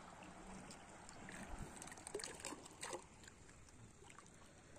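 Faint sloshing and trickling of shallow seawater as someone wades and digs by hand in the sand for clams, with a few sharper little splashes about two to three seconds in.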